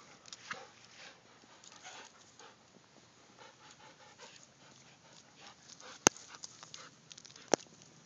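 Dogs panting close by, a run of quick breaths. Two sharp clicks, the loudest sounds, come near the end, with smaller ticks after them.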